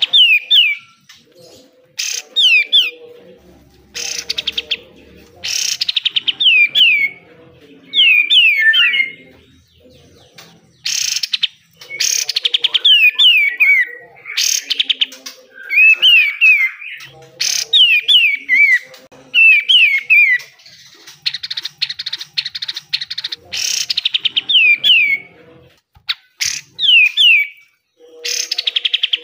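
Kapas tembak (katem) singing: short phrases of quick downward-sliding whistled notes, alternating with harsh rasping bursts, the 'besetan'. About two-thirds of the way through there is a longer buzzy rattle.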